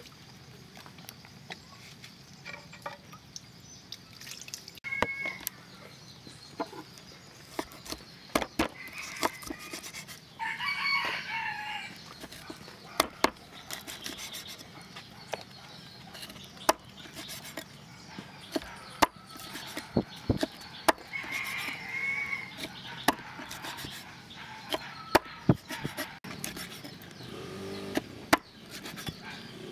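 Heavy cleaver chopping an eel into pieces on a wooden cutting board: irregular sharp knocks, the loudest sounds here. A rooster crows in the background, about ten seconds in and again a little past twenty seconds.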